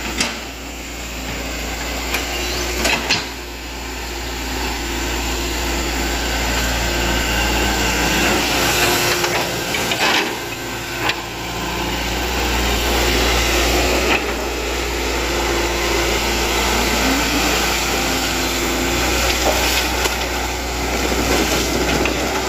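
Hitachi Zaxis 110MF crawler excavator running and travelling closer on its steel tracks, a steady engine and hydraulic hum with scattered sharp clanks. It grows louder over the first several seconds as it nears, then holds steady.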